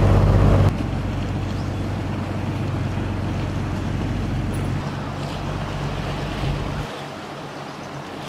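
Sightseeing boat's engine droning steadily, cut off abruptly less than a second in. After that comes a quieter, steady outdoor wash of wind and water noise.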